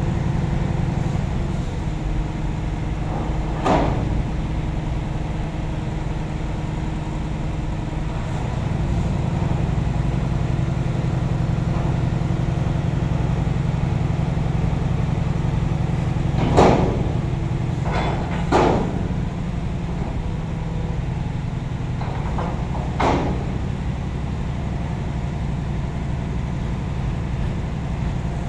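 Heavy diesel engine running steadily at idle, with about four short sharp knocks, two of them close together about two-thirds of the way through.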